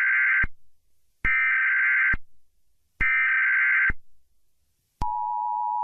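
Emergency Alert System SAME header: three short, screechy digital data bursts about a second and a half apart. About five seconds in, the steady, harsh two-tone EAS attention signal begins and holds.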